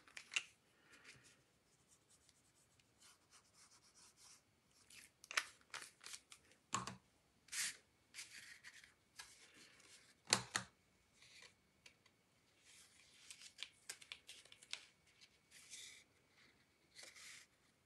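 Faint rustling and scraping of cardstock being handled and pressed into place, with scattered light taps and two sharper knocks about seven and ten seconds in.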